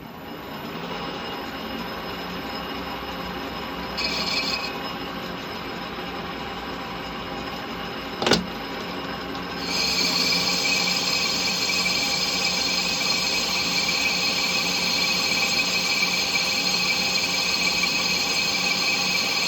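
Lathe running while a large carbide insert takes a dry facing cut across a rusty cast-iron clutch backplate, with a steady mechanical noise and a high squealing note from the cut. There is a sharp knock about eight seconds in. From about ten seconds in the cutting sound gets louder and shriller.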